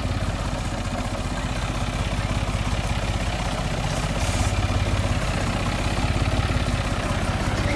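John Deere tractor's diesel engine running steadily at low speed as the tractor creeps along, with an even, rapid firing beat. A brief hiss about four seconds in.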